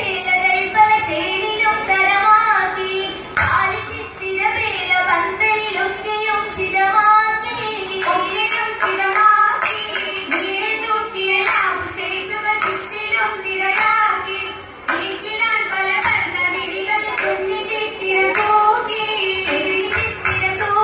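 Mappila song for an Oppana dance, sung by girls' voices, with the dancers' regular hand claps running through it and a steady held tone underneath.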